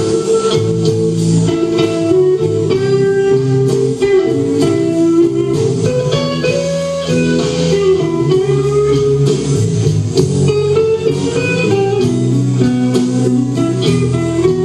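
Live band playing an instrumental blues passage: electric guitar carrying the melody over bass and drums with a steady beat.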